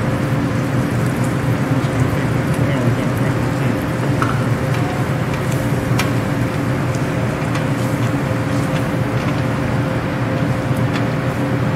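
Pork sausage frying in its own grease in a stainless steel pan, with scattered small pops and the scrape of a wooden spoon as flour is stirred in to make a roux, over a steady low hum.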